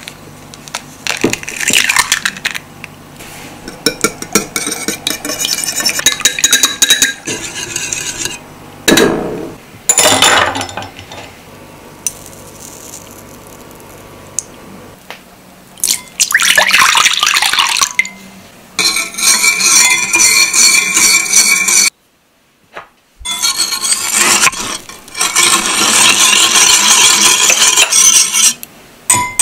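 An egg cracked and its shell broken open over a ceramic bowl, the egg then poured into a bowl, and chopsticks beating it, clicking rapidly against the bowl near the end.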